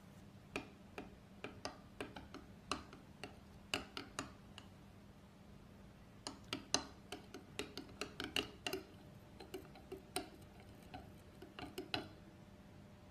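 Metal spoon stirring a drink in a glass jug, clinking irregularly against the glass, with quicker runs of clinks in the middle.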